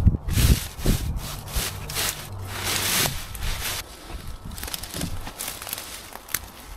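A long-handled digging tool chopping and scraping through soil, roots and brambles in quick strokes, about two a second, each with a dull thud and a rasping scrape. A little over halfway the strokes stop, leaving quieter rustling and scattered clicks.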